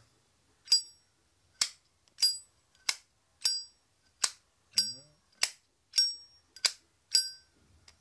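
Zippo lighter's hinged lid flicked open and snapped shut over and over, about eleven sharp metallic clinks with a short ring, roughly one every half second. It is the lighter's lid sound being shown off, clean and judged good ('this one's sound seems ok').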